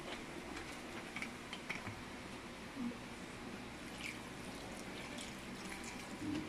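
Water poured in a thin stream from a jug into a metal wok of fish and vinegar: a quiet, steady trickling splash with a few small clicks.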